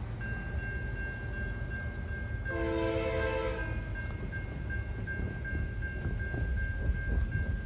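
Distant freight locomotive air horn sounding one chord blast of about a second, about two and a half seconds in, over a steady low rumble and a steady high-pitched ringing tone.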